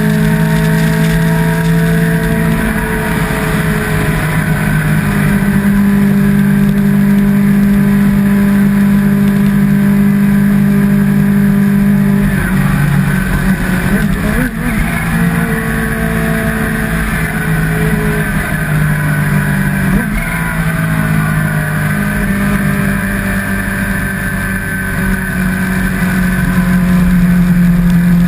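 Sport motorcycle engine running at a steady cruise under wind and road noise. The engine note drifts slowly and shifts briefly about halfway through.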